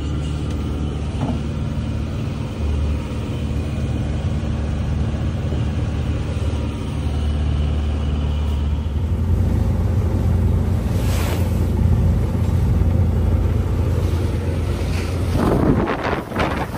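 Sailboat's inboard engine running at a steady drone, with wind and water noise over it and a louder rush of wind or water near the end.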